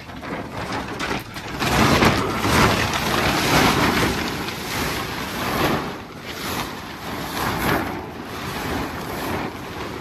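A large plastic silage bag rustling and crinkling as it is pulled out off a bagging machine's pan, in uneven swells, loudest about two to four seconds in.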